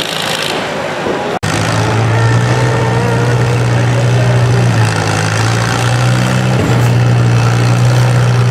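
Antique farm tractor engine running at a steady speed, a loud low drone that holds its pitch apart from two brief dips. It is preceded by a second or so of rougher, noisier engine sound that stops abruptly at a momentary drop-out in the recording.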